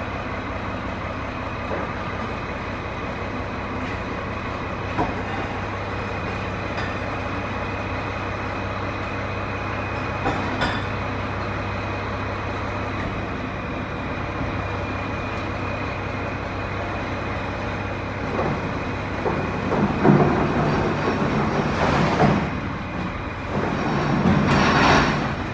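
A vehicle engine idling steadily, with a constant low hum and a thin steady whine, then louder, rougher surges about twenty seconds in and again near the end.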